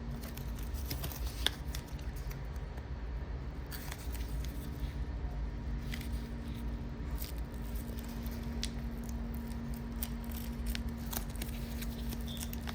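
Scattered light clicks and handling noises as a small fidget slider and its packaging are handled by hand, over a steady low electrical hum.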